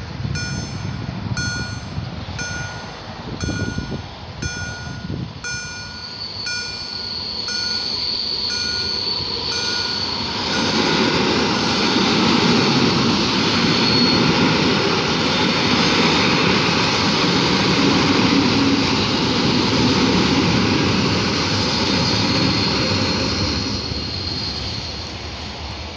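Electronic warning bells (EHL-S10) at a Polish level crossing beep in a fast, even rhythm and stop about ten seconds in. An electric multiple-unit passenger train then passes loudly over the crossing, wheels running on the rails, and fades near the end.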